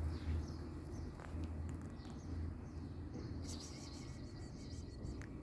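Outdoor ambience: a steady low rumble with a few faint, short bird chirps over it, and a brief high hiss about three and a half seconds in.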